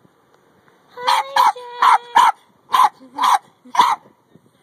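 Dog barking in a quick series of about seven sharp barks, starting about a second in, with a high whine held between the first few.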